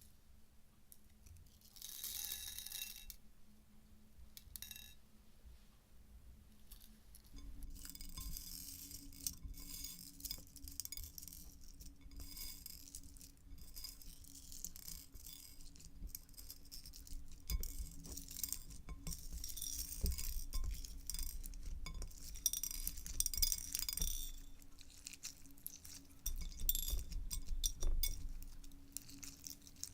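Slime being squeezed and worked by hand, giving a dense crackle of many small clicks and pops. It starts with a short burst, then runs on steadily from a few seconds in, swelling louder in stretches.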